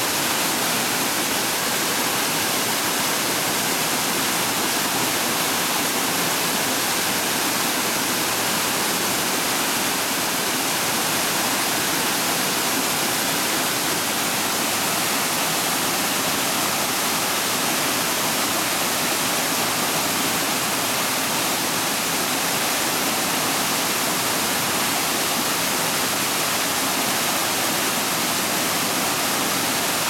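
A forest stream cascading over rocks: a steady, even rush of white water.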